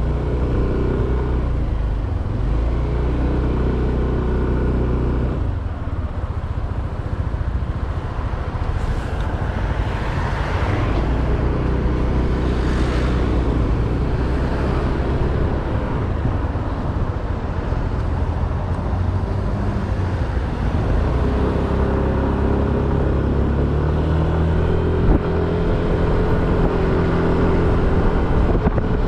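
Motorcycle engine running on the move, its pitch dropping and climbing as it slows, speeds up and changes gear, over a steady rushing noise.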